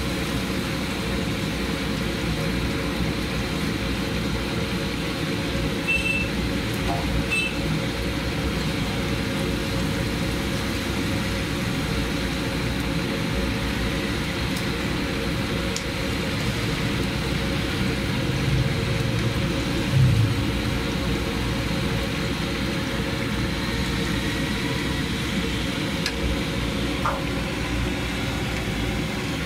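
Steady sizzle of chicken pieces deep-frying in a large karahi of hot oil, under a constant hum of street traffic and engines. A couple of short high clinks come early and a single low thump about twenty seconds in.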